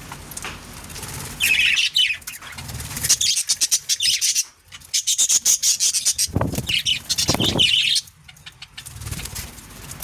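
Budgerigars chirping and chattering in loud bursts of rapid, high twittering, separated by short lulls, with a couple of dull thumps about two-thirds of the way through.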